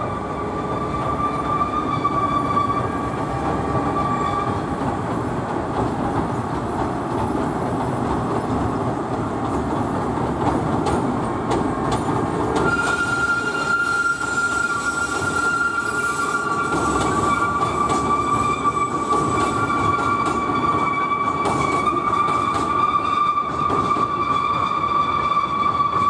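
Oigawa Railway Ikawa Line train, a Toby-liveried locomotive hauling red coaches, rolling across a steel truss bridge with a steady rumble and a held, high-pitched wheel squeal. About halfway through, the squeal jumps to a higher pitch for several seconds, then settles back to its first tone.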